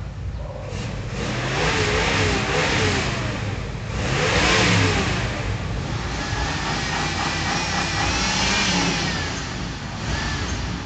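Engines of American cars in a slow-moving convoy, revving several times, the pitch rising and falling as they pass at a crawl.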